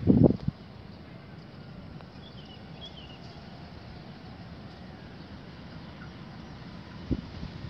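Steady low outdoor background noise with a few faint bird chirps about two to three seconds in. A heavy thump opens the stretch and a lighter one comes near the end.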